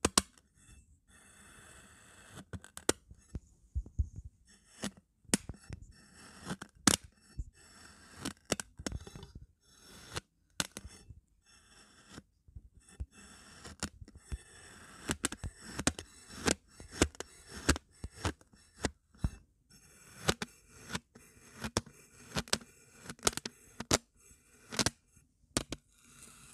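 Metal knife blade slicing down through kinetic sand again and again, each cut a short crisp crunch, several a second at an uneven pace.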